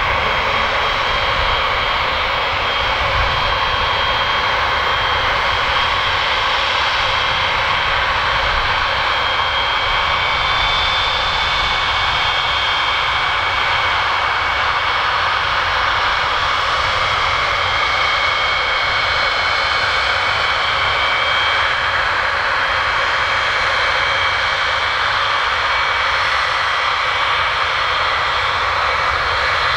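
Boeing E-3A Sentry's four TF33 turbofan jet engines running steadily on the ground. Loud, even whine of several high tones over a continuous rushing noise, with no change in power.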